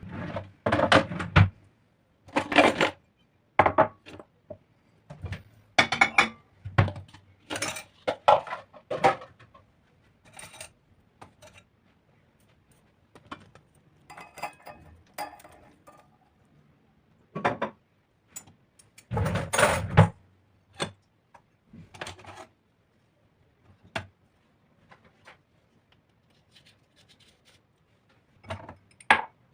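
Dishes and cutlery being handled: a string of separate clinks and clatters with quiet gaps between, the loudest a longer clatter about two-thirds of the way in.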